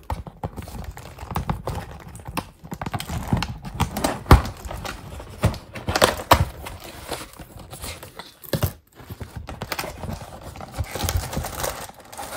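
Irregular knocks, taps and scraping from a cardboard box being opened and its contents handled, with the loudest knock about four seconds in.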